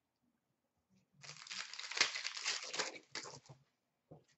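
Foil wrapper of a trading card pack crinkling as it is handled and torn open: about two and a half seconds of crackly rustling, starting just over a second in and loudest around the middle.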